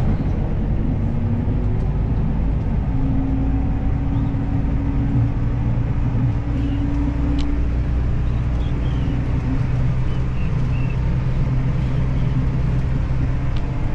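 Steady engine drone and road noise of a moving vehicle, heard from on board while it drives; the engine's note shifts a few seconds in.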